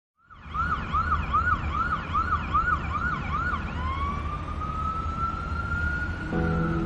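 Emergency vehicle siren in a fast yelp, about two to three quick sweeps a second, switching a little past halfway to a slow rising wail that starts to fall near the end, over a low engine rumble. Music comes in just before the end.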